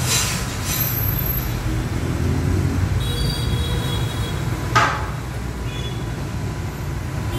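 Large-format plastic bag cutting machine running with a steady low hum, with one short sharp hiss about five seconds in.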